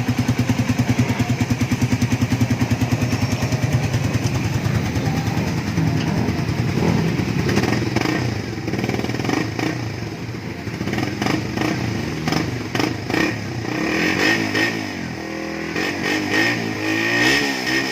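Suzuki Raider 150 Fi's single-cylinder four-stroke engine running through a stock Raider 150 carb exhaust pipe with a stainless elbow. It runs steadily at first, then is revved up and down repeatedly in the second half, with no popping from the exhaust.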